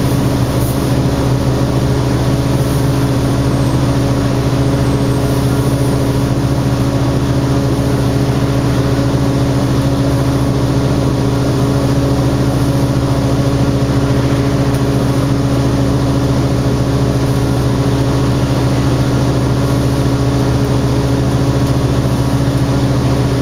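Detroit Diesel Series 50 engine and Allison B400R automatic transmission of an Orion V transit bus, heard from inside the passenger cabin, running with a steady, unchanging drone.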